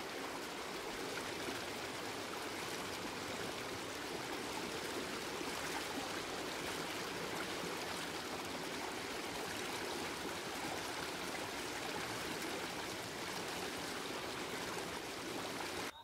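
Water rushing steadily, an even hiss with no pauses or changes.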